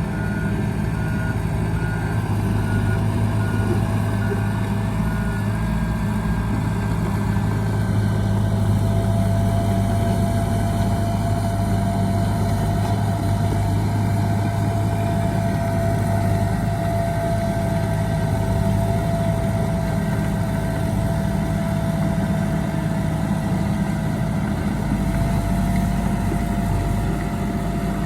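Heavy diesel earthmoving machinery running steadily with a constant whine. A reversing alarm beeps at an even pace for the first five seconds or so, then stops.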